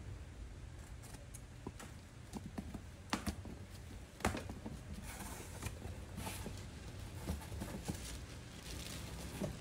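A taped cardboard shipping box being opened by hand: scattered clicks and scrapes as the tape seam is slit, a sharp knock about four seconds in, then rustling as the cardboard flaps are pulled open and folded back.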